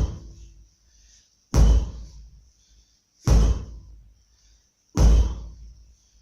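Heavy blows of a 12 kg sledgehammer, four strikes at an even pace of about one every 1.7 seconds. Each lands with a deep thud that dies away over about a second.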